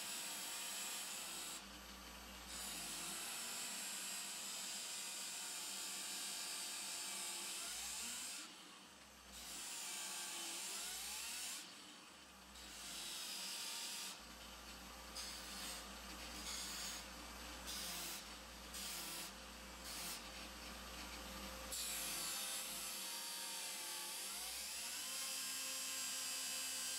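Angle grinder fitted with a sanding disc and mounted under a table as a disc sander, running with a steady motor hum while wood is sanded against the disc. The sanding makes a hissing rasp that stops each time the wood is lifted, with a string of short passes in the second half.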